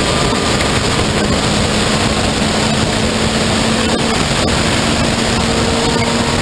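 Onboard sound of an open-cockpit race car at speed on track: a steady engine note under a heavy, even rush of wind and road noise.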